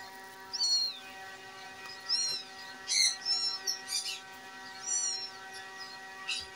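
Injured tabby cat mewing: a series of short, high-pitched cries, about one a second.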